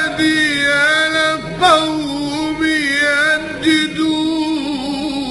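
A solo male munshid sings an Arabic Sufi hymn (inshad) in a melismatic chant. He holds long notes and adds quick ornamental turns about every two seconds.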